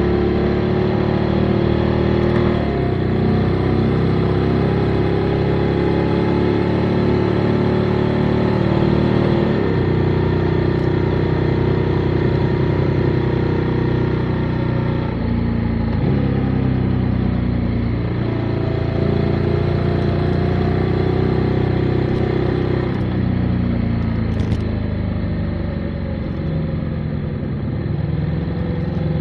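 Motorcycle engine running while riding, its pitch climbing and dropping with throttle and gear changes every few seconds, with a steady rush of wind and road noise.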